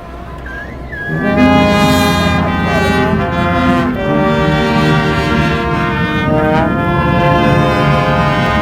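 Brass band playing loud, long held chords of trumpets and trombones. After a brief quieter moment, the full band comes in about a second in.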